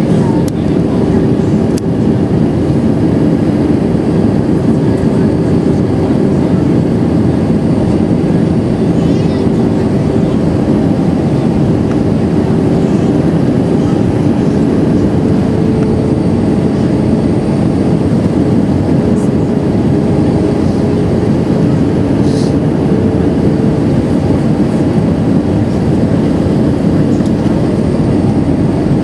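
Airbus A319 cabin noise during descent: the steady rush of the jet engines and airflow, heard from a seat over the wing. A steady hum runs through it and rises slightly in pitch partway through.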